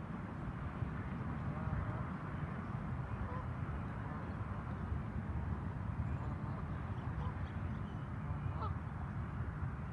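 Waterfowl on a lake calling faintly now and then, over a steady low rumble.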